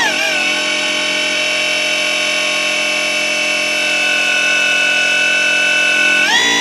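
Traxxas Slash RC truck's brushless electric motor whining steadily at high revs during a burnout. It is a high-pitched tone with many overtones that dips slightly at the start and rises sharply about six seconds in.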